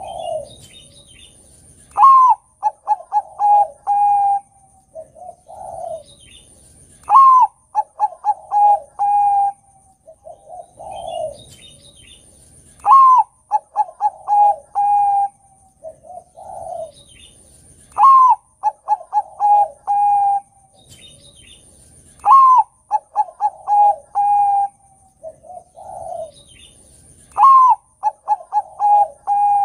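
Bangkok-type zebra dove (perkutut) singing its cooing song. The phrase repeats about every five seconds, six times in all: a high note that rises then falls, a quick run of short coos ending on a longer held coo, then a lower, separate falling coo.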